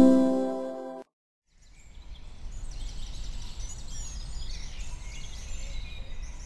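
The tail of a held musical chord fades and cuts off about a second in. After a short gap, a rural ambience bed follows: a steady low rumble with faint bird chirps above it.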